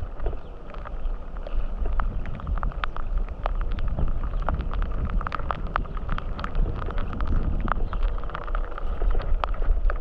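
Bicycle rolling along a wet gravel path: a steady rumble of wind on the microphone with many irregular clicks and rattles from the bike and tyres over the rough surface.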